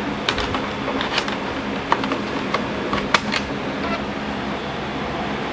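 Scattered light clicks and clacks from hands working a PowerBook 520C laptop and a floppy disk, mostly in the first three seconds, over a steady low hum.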